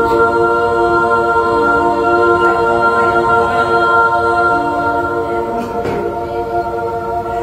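A choir of voices holding a long, sustained chord a cappella, the notes shifting slightly a couple of times.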